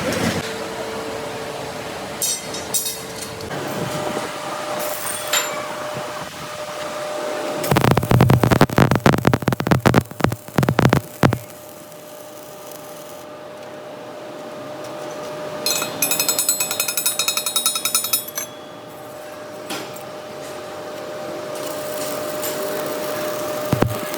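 Metalworking workshop tool noise over a steady machine hum. A rapid run of hard blows comes about eight seconds in and lasts some three seconds. A high, fast rattling power-tool burst comes around sixteen seconds in, with scattered single knocks between.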